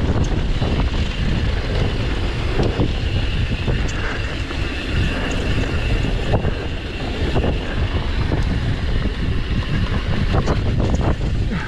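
Wind buffeting the microphone over the steady rumble of a downhill mountain bike rolling fast over a dirt trail, with scattered short clicks and knocks as the bike rattles over bumps.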